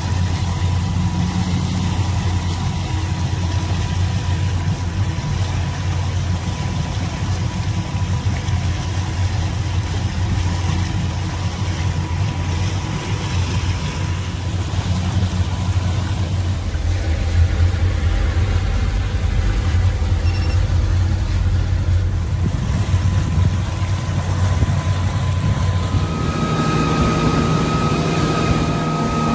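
Motorboat engine running steadily under way, its note changing near the end.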